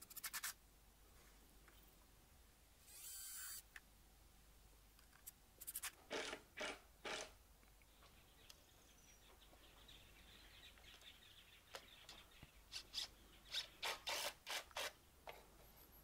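Faint, intermittent scratching and rubbing as small screws and timber are handled and set into a wooden box, in short scrapes with a brief hiss about three seconds in.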